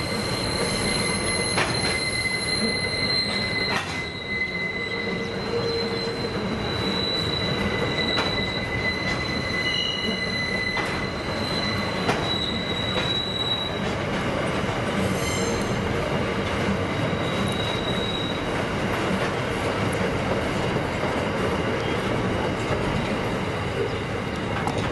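Coal train hopper wagons rolling round a tight curve, their wheels squealing in a steady high-pitched tone that fades out about halfway through. Under it runs the continuous rumble of wheels on the rails, with occasional clacks at rail joints.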